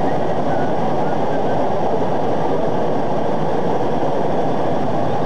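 Police patrol car's engine idling, a steady even rumble picked up by the in-car dash-camera microphone.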